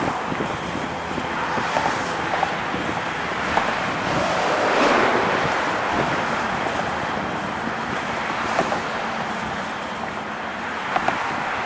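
Road traffic passing on the bridge roadway alongside: a steady rush of tyre and engine noise that swells as a car goes by about five seconds in. A few faint knocks are scattered through it.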